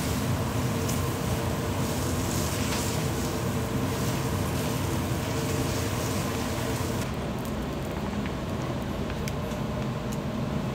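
Steady mechanical hum of kitchen equipment, with a hiss that fades about seven seconds in, leaving a few light clicks.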